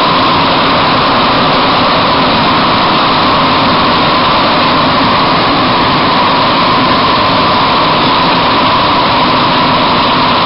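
Bombardier-Vickers MR-63 rubber-tyred metro train running at speed through a tunnel, heard from inside the car: a loud, steady rolling noise with a constant high hum.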